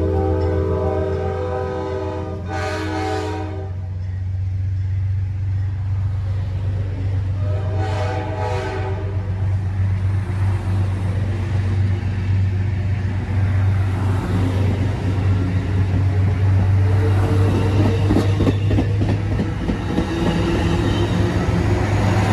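Amtrak GE Dash 8 (P32-8BWH) diesel locomotive departing: its chime horn sounds one long blast that ends about three and a half seconds in, then a short blast about eight seconds in, over the steady drone of the engine. In the second half the train's wheels clack over the rail joints as it rolls by.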